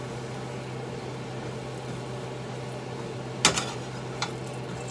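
Steady low hum of a kitchen fan, with a sharp metal clink about three and a half seconds in and a lighter one shortly after: a stainless-steel utensil knocking against the frying pan.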